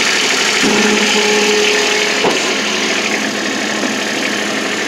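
Kubota RTV X1100C's 0.9-litre three-cylinder diesel idling steadily, with a brief steady whine lasting about a second and a single sharp click a little after two seconds in.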